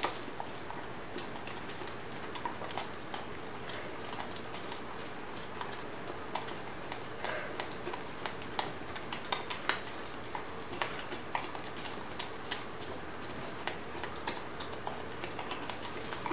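A puppy licking and smacking at peanut butter on a metal spoon: small wet clicks at irregular intervals, busiest in the middle, over a steady background hiss.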